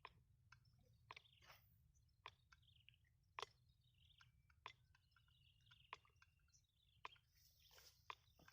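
Near silence, broken by faint scattered sharp clicks and a few faint high chirps.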